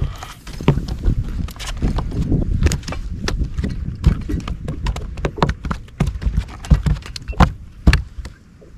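Irregular knocking and clattering in a fishing boat, many sharp knocks at uneven spacing over a steady low rumble, loudest near the end.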